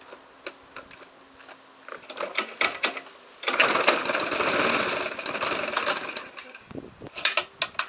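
Briggs & Stratton Sprint 375 lawnmower engine being started: a few clicks, then it catches about three and a half seconds in, runs with a fast rattling beat for about three seconds, and dies away, followed by a few knocks.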